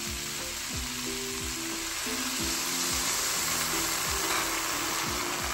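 Corn kernels and diced bacon sizzling steadily in a hot pan on high heat, just after half a cup of water has been poured in. Background music with low plucked notes plays underneath.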